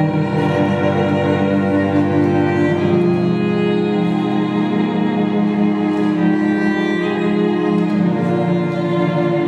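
Violin and cello duo playing long sustained notes together, the harmony moving to new notes every few seconds.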